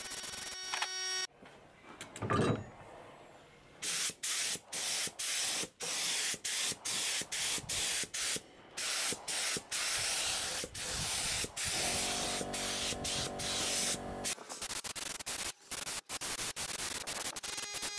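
Compressed-air paint spray gun hissing in a quick series of short bursts as the trigger is pulled and released, spraying silver paint onto a motorcycle swingarm. A brief, louder noise about two seconds in comes before the bursts.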